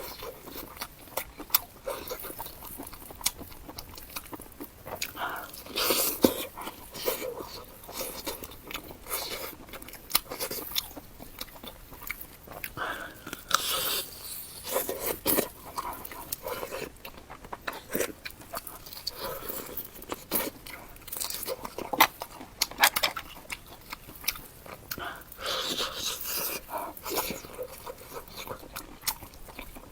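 Close-miked eating of rice-stuffed chicken wings: irregular crunching bites and chewing.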